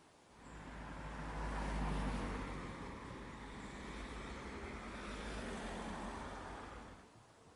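A car driving past: a steady rumbling engine and tyre noise that rises quickly, is loudest about two seconds in, and drops away abruptly about seven seconds in.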